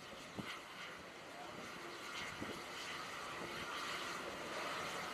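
Steady wind and machinery noise on an aircraft carrier's flight deck, rising in level over the first second, with a faint hum and a few soft knocks.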